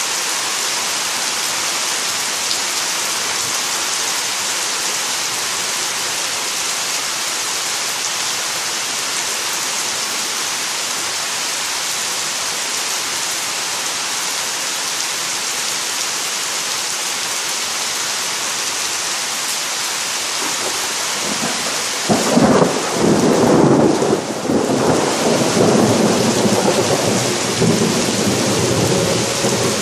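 Steady rain falling on trees and grass. About two-thirds of the way through, a sudden thunder clap breaks and keeps rumbling loudly under the rain.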